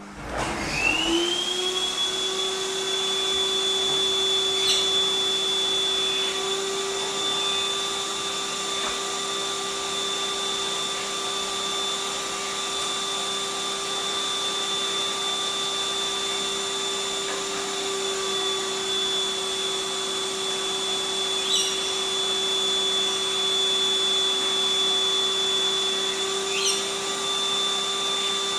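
Canister vacuum cleaner switching on: its motor whine climbs quickly to a steady high pitch over a hiss of rushing air and keeps running, with a few light clicks.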